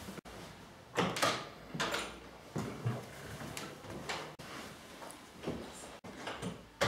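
A wooden panel door being opened and shut: several separate knocks and clicks, one every second or so.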